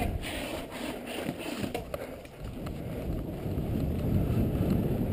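Low rumble of wind and movement on a moving camera's microphone, with a few light knocks in the first two seconds.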